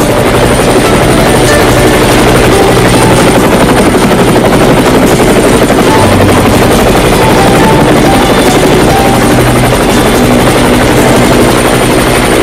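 Helicopter running close by: a loud, steady rotor beat with a thin high whine over it.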